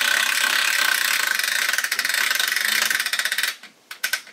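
Log-turning mechanism of a chainsaw mill rattling as the log is rolled: a dense, rapid clicking with a steady whine, lasting about three and a half seconds and cutting off, then a few separate clicks near the end.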